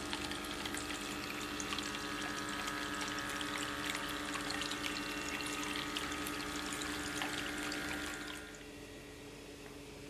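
Water splashing and trickling as it spills from spout to spout down a cascade of small clay pots into a water-filled tub, full of little droplet splashes. The water sound cuts off about eight and a half seconds in.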